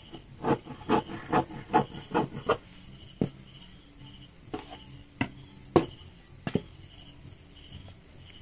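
Scissors snipping through mesh and stretch-knit fabric in about six quick, evenly spaced cuts, followed by a few separate clicks and rustles as the scissors are set down and the cut fabric is handled.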